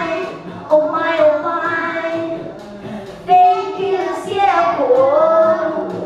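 A group of young children singing together, holding notes. One note near the end slides down in pitch.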